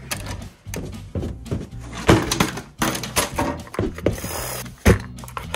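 Irregular small clicks and knocks of metal parts being handled: an RC motor and pinion gear being picked up and offered up for fit.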